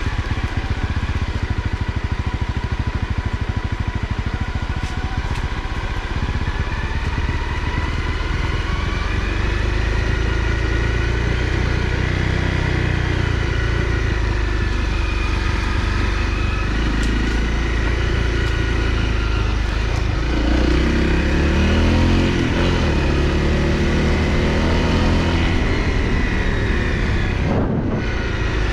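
Honda CRF250L's single-cylinder four-stroke engine running as the motorcycle is ridden, its pitch rising and falling several times with throttle and gear changes, most noticeably from about ten seconds in and again in the last third.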